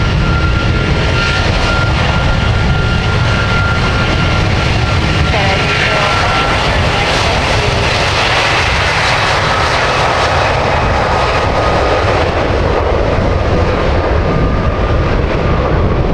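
Jet airliner's engines passing close, a steady loud rumble and hiss that grows strongest about halfway through.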